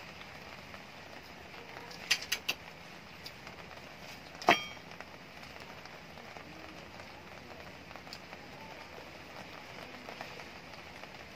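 Steady hiss of rain falling, with a few sharp clicks: three quick ones about two seconds in and a single louder one a couple of seconds later.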